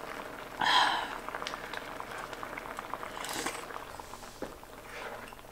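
Budaejjigae stew simmering in an electric skillet, a steady bubbling with many small pops. Close mouth sounds of eating come over it, loudest about a second in.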